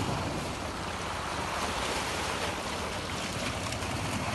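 Sea waves washing and breaking over shoreline rocks, a steady rush of surf, with some wind on the microphone.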